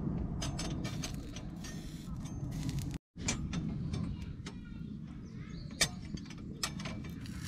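Clicks and clinks of a steel iron plate on the grill of a fire stand as it is set down and tilted over a charcoal and wood fire to dry it during seasoning, with crackling from the fire. A steady low wind rumble runs underneath.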